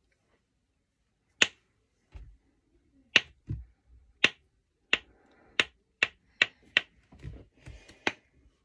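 Snapper fidget toy snapping repeatedly: about a dozen sharp clicks, the first alone about one and a half seconds in, then coming faster, one or two a second, with a few duller thumps from handling in between.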